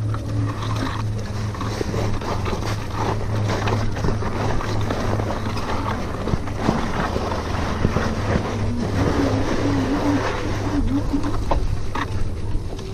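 Riding noise of a RadMini electric fat-tyre bike picked up by a chest-mounted action camera: wind rush and tyre rumble over a steady low hum, with scattered clicks and rattles and a brief wavering tone about nine seconds in.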